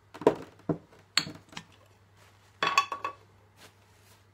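Small glass jars of shellac being handled: a string of sharp clinks and knocks, glass against glass or against a hard surface, with a cluster of ringing clinks about three seconds in.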